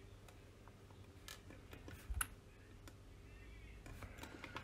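A few faint computer mouse and keyboard clicks, the sharpest about two seconds in and a small cluster near the end, over a low steady room hum.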